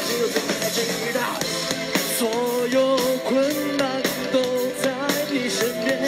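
Live pop-rock band playing, with a male voice singing over drums and guitars.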